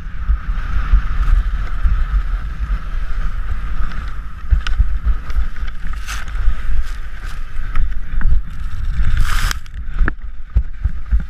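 Wind buffeting a helmet-mounted action camera's microphone, with skis scraping over snow as the skier tumbles in a fall. Several sharp knocks come during the fall, and a loud burst of scraping snow comes about nine seconds in.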